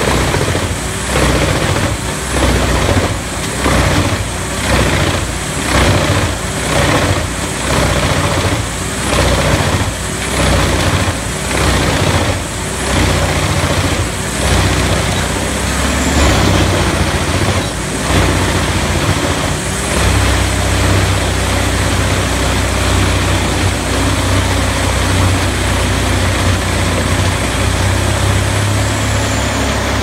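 Vermeer WC2500 tracked whole-tree chipper chipping a whole conifer tree, its engine running hard under load. For the first half there is a rhythmic pulsing about once a second; then it settles into a heavy, steady drone as the trunk goes through. A steady high whine runs over it.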